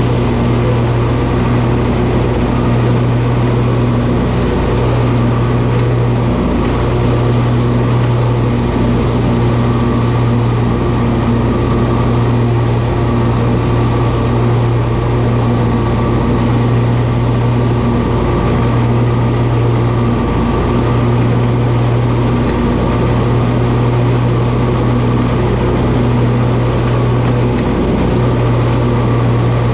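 Toro zero-turn lawn mower running steadily at a constant, loud engine pitch.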